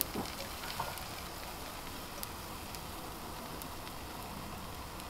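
Zucchini pancake batter sizzling gently in a pan greased with butter and oil, a steady soft hiss. A few light taps of the metal ladle against the pan in the first second.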